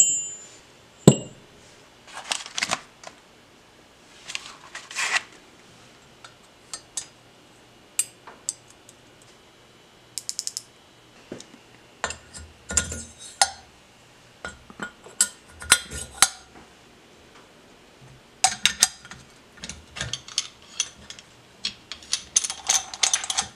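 Metal engine parts handled on a wooden workbench: engine valves set down with a sharp clink, then scattered clinks, clicks and taps as valve parts are fitted into an aluminium cylinder head and a C-clamp valve spring compressor is put on.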